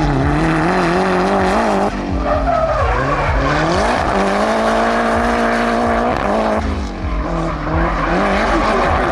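Nissan 200SX drift car's engine held at high revs, its pitch rising and falling as the driver works the throttle through the drift, dropping briefly about two seconds in and again near seven seconds. The rear tyres squeal and skid under the engine.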